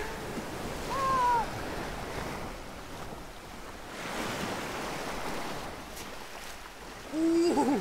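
Sea waves washing on a pebble beach, with wind on the microphone. A short, high, falling cry comes about a second in, and a loud, wavering yell near the end.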